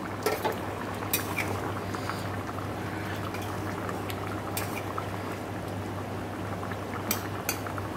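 Thin chicken curry bubbling at a steady boil in a pan on a gas stove, with a low steady hum underneath. A metal spatula stirring in the pan clinks sharply against it several times.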